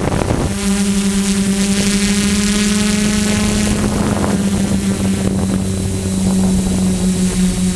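DJI F450 quadcopter's motors and propellers in flight, a steady droning hum with a fixed pitch that wavers briefly about halfway through.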